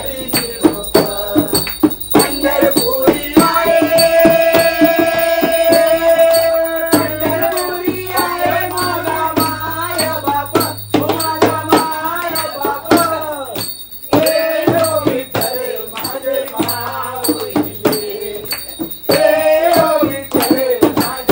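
Devotional aarti song: singing over a steady clapped, jingling beat, with one long held note a few seconds in.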